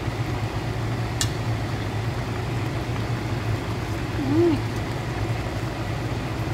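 Steady low hum with a noisy hiss over a gently simmering pot of coconut milk, with one sharp click about a second in and a short hummed "mm" around four seconds in.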